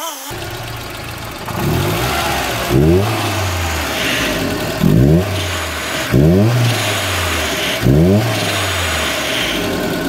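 Volvo 240's swapped-in B230FT 2.3-litre turbocharged four-cylinder running, blipped four times: each rev climbs sharply in pitch and drops back to idle.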